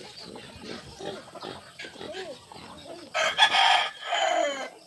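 A rooster crowing once, loudly, starting about three seconds in, in two parts with the last note falling away. Quieter short calls come before it.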